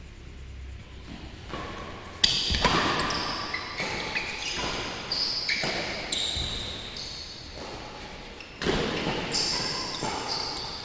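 Badminton play in a large indoor hall: a string of sharp racket hits and short high squeaks, the loudest hits about two seconds in and near the end, each ringing out in the hall's echo.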